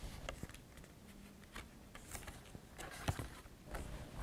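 A page and a paper flap of a large hardback picture book being handled and turned: soft paper rustles and light clicks, the loudest about three seconds in.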